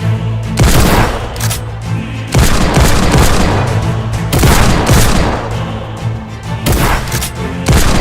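Bursts of gunfire, about six loud booming volleys, over background music with a steady low bass line.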